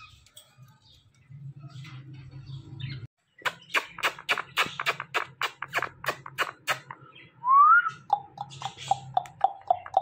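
Kissing sounds between a man and an Indian ringneck parakeet, beak to lips: a quick run of sharp smacks about five a second, then a single rising whistle and a string of short pitched chirps about four a second.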